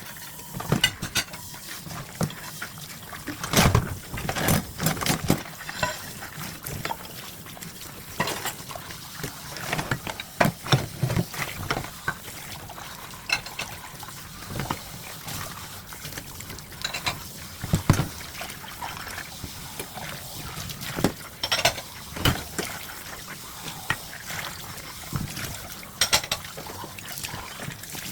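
Dishes being washed by hand in a sink: water running and splashing, with irregular clinks and knocks of dishes and utensils against each other and the sink.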